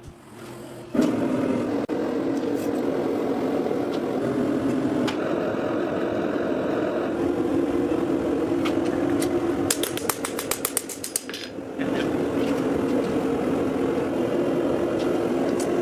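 A machine running steadily, starting abruptly about a second in. It eases off briefly past the middle, where a quick run of sharp clicks is heard, then picks up again.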